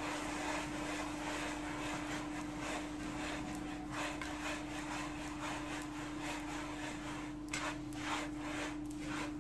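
Hands rubbing and raking damp fine couscous semolina against a metal dish: a steady gritty scraping in repeated strokes, more distinct near the end. This is the water being worked into the grains so they absorb it evenly and don't clump.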